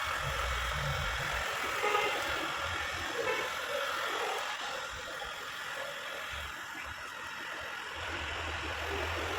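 Street noise with a motor vehicle's engine running, a low rumble that is stronger at the start and again near the end.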